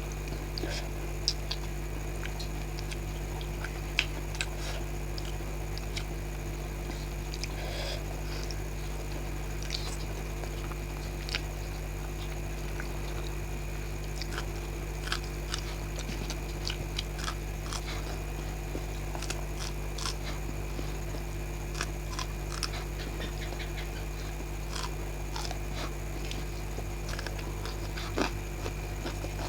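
Close-up mouth sounds of a person eating: irregular chewing, biting and small wet clicks and smacks. A steady electrical hum runs underneath.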